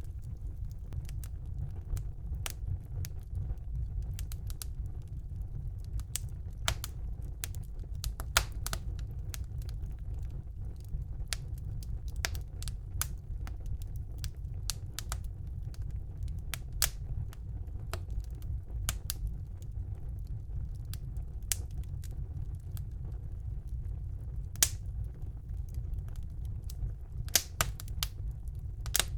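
Wood fire burning in a fireplace: a steady low rumble of the flames with irregular sharp crackles and pops from the burning logs, a few louder pops near the end.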